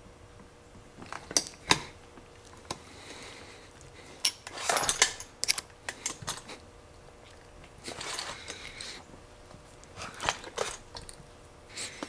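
Steel chisel scraping and clicking against the metal plug of a disc detainer padlock as it is levered to force the plug out against its spring retaining clip. There are two sharp clicks about a second and a half in, then bursts of scraping about halfway through and again later.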